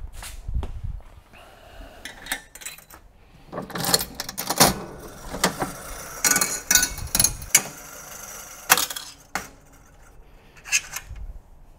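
Vintage mechanical slot machine being worked: a dense run of metallic clicks, clacks and clinks from its handle and reel mechanism, lasting about five seconds, with a few more clicks near the end.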